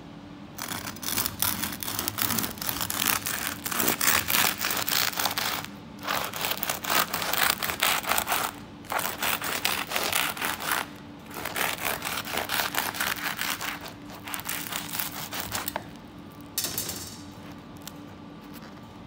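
Serrated bread knife sawing lengthwise through a thick, crunchy baguette crust: a dense crackling rasp of crust breaking under the blade, in several long runs with short breaks, stopping about sixteen seconds in, then one brief crackle.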